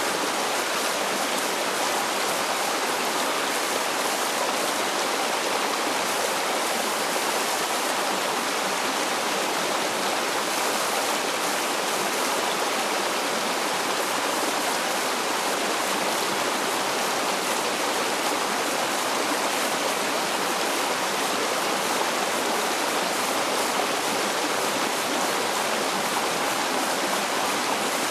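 Small rocky stream running over and between boulders: a steady, even rush of flowing water.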